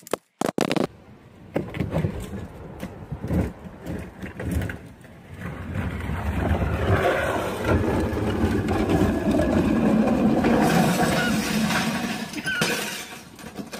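A sharp clatter in the first second, then a couch section with a person riding in it scraping and rattling down an asphalt driveway. The scraping is loudest in the second half and fades near the end, as the couch comes apart into pieces.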